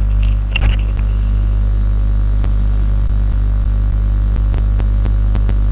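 Steady low hum that does not change in pitch or level.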